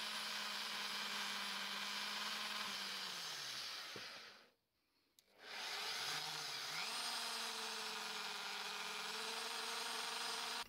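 Drill press motor running at a steady hum. It winds down about three seconds in, and after a short silence it starts up again and settles back to a steady speed.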